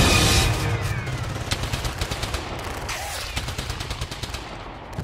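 Scattered hand-clapping from a crowd, many irregular sharp claps, after music stops about half a second in; the applause fades away toward the end.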